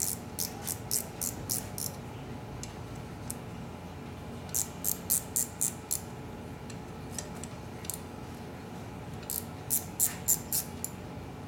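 Hand ratchet clicking in three quick runs of about seven clicks each, working a nut at a motorcycle clutch hub.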